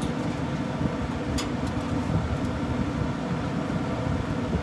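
Steady low hum of a pellet smoker running, with a couple of short metallic clicks as a rack of ribs is hooked onto the smoker's grate, the clearest about a second and a half in.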